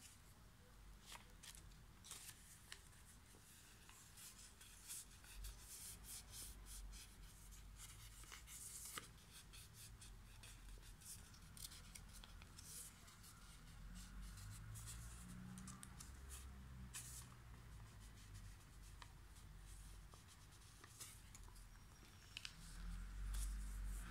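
A square sheet of origami paper being folded and creased by hand: faint rustling with many scattered crisp crackles as the folds are pressed.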